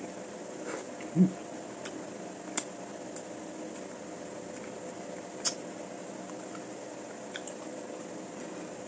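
Wet eating sounds, chewing and sucking on salmon head, with a few sharp clicks spread through, over a steady background hum. A short low thud about a second in is the loudest sound.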